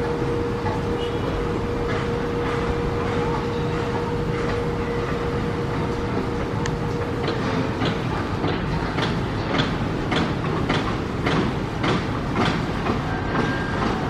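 Steady mechanical rumble with a constant hum that fades out about halfway through. After that comes a regular clacking, about two clacks a second, typical of wheels running over rail joints.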